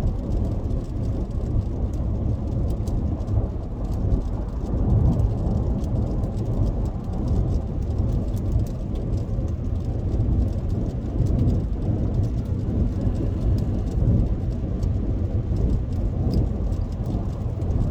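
Steady low rumble of a car's cabin while driving, with raindrops ticking on the car's body and windshield.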